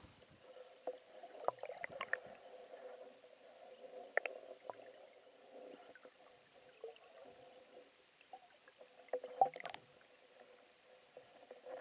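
Faint, muffled underwater sound picked up by a camera held beneath the lake surface: a dull murky hum with scattered soft clicks and knocks, over a thin steady high tone.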